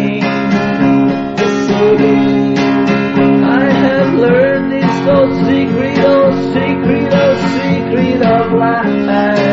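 Rock song in an instrumental passage between sung lines: strummed acoustic guitar over a steady backing, with a lead melody bending in pitch in the middle.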